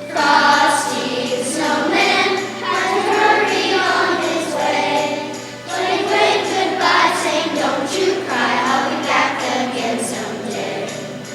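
A choir singing, with jingle bells shaken along, the phrases breaking briefly about halfway through.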